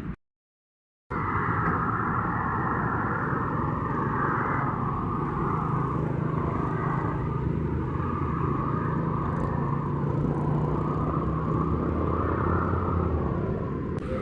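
Steady vehicle running noise with a low engine hum, starting about a second in after a moment of dead silence.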